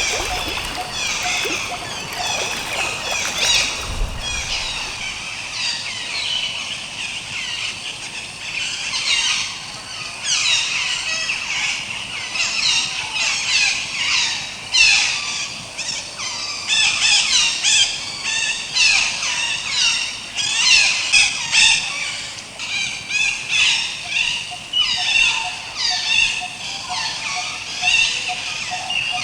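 A flock of birds calling at once: a dense chatter of high, sweeping squeals and chirps that rise and fall in waves, loudest from about halfway in.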